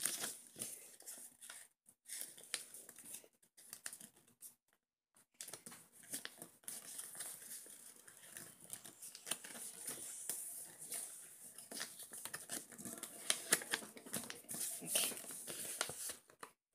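Sheet of A4 paper being folded and creased by hand into a paper airplane: irregular rustling and crinkling, with a couple of brief pauses.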